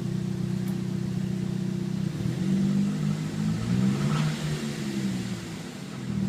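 2003 Saab 9-3 SE's turbocharged four-cylinder engine running with a loud noise, revved up and let back down about two seconds in, then settling back to a steady idle. The owner has noticed the noise as super loud since an oil change and engine flush and finds it not as loud when revved.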